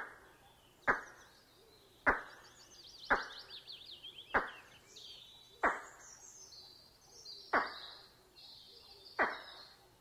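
A series of about eight sharp knocks, roughly one a second at uneven spacing, each dying away quickly. Behind them, small birds chirp and trill high-pitched.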